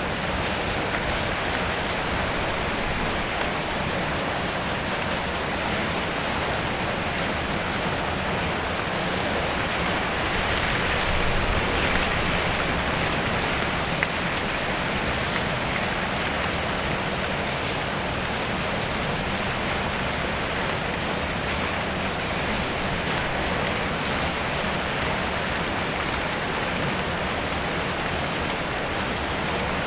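Steady rain falling on a car's metal body, heard from inside the car, swelling slightly heavier about a third of the way in.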